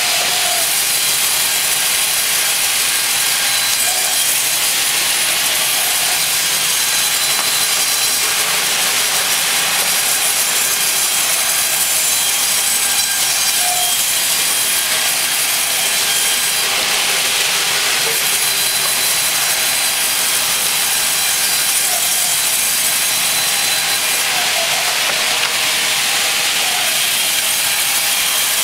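Large band saw resawing wide walnut planks, the blade cutting steadily through the wood with a continuous hissing noise and no breaks.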